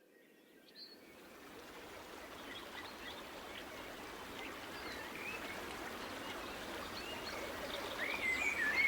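Phone alarm tone opening with a nature recording: running water with birds chirping, fading in from silence and growing gradually louder, the chirps busiest near the end.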